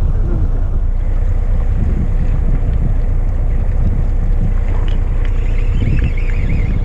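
Steady low rumble of a fishing boat's engine running, with wind buffeting the microphone.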